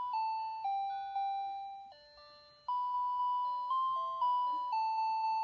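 Electronic tune from the Safety 1st baby walker's toy console: a simple melody of single beeping notes, each one fading after it sounds.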